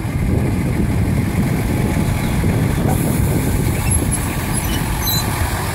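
Small narrow-gauge diesel locomotive's engine idling steadily.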